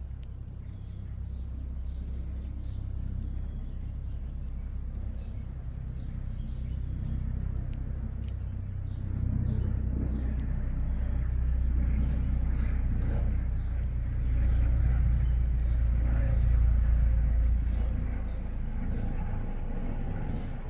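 Helicopter flying over as a deep rumble that grows louder, is strongest a little past the middle and eases near the end. Faint high chirps repeat above it.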